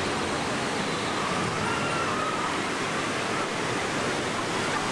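Steady rush of water pouring down rock cascades into a water ride's channel, an even wash of noise with no breaks.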